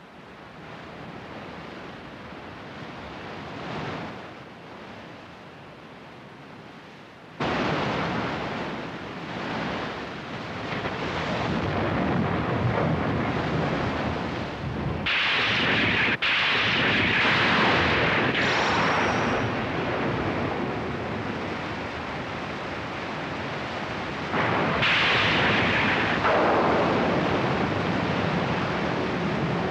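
Storm-at-sea sound effects on an animated film's soundtrack: a steady rush of wind, rain and crashing surf. It swells suddenly about seven seconds in and surges louder twice more.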